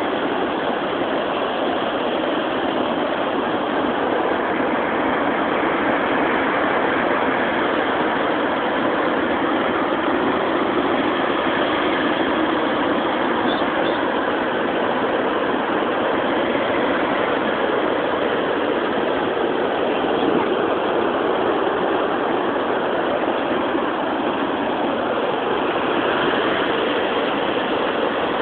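Ocean surf, a steady wash of noise with no single wave crash standing out.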